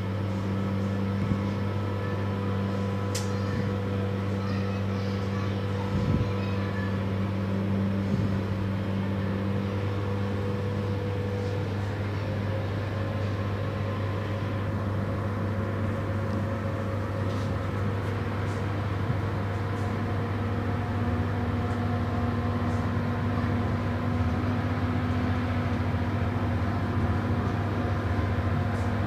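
Diesel engine of an OSE ADtranz/Bombardier DE 2000 locomotive running with a steady drone, heard close up at the coupling to the first coach; its note rises slightly about twelve seconds in.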